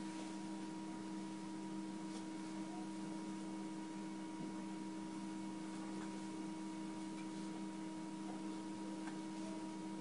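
Steady background hum made of several fixed tones over a faint even hiss, with nothing else standing out.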